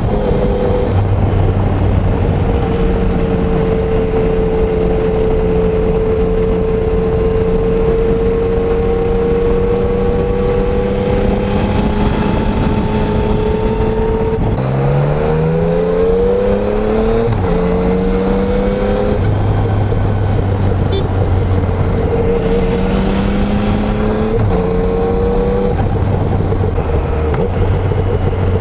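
Yamaha Tracer 900's three-cylinder engine running through its stock exhaust under steady throttle, with wind rushing past. About halfway through, the engine drops in pitch, then pulls hard through several quick rising bursts broken by manual upshifts, before settling back to steady running.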